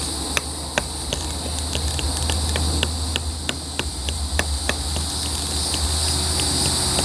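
Steady high-pitched chorus of insects trilling, with a scatter of small sharp clicks at irregular intervals, several a second, over a low steady rumble.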